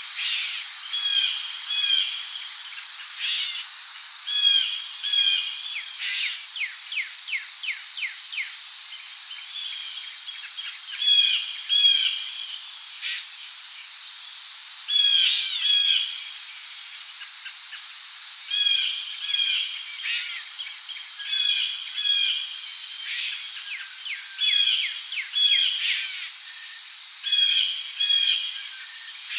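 Rainforest ambience: insects keep up a steady, high-pitched drone while birds call over it in short notes that repeat in pairs. A quick run of chirps comes about six to eight seconds in, and a few louder calls stand out here and there.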